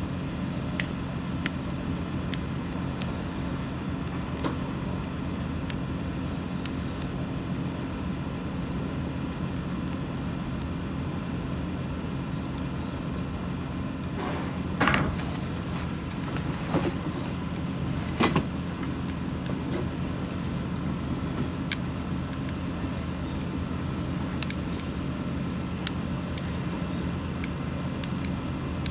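Wood fire crackling with scattered sharp pops, a few louder ones around the middle, over a steady low rumble.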